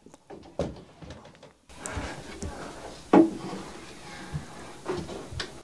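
A chair and cushions being moved and set in place: a series of knocks and thumps, the loudest about three seconds in.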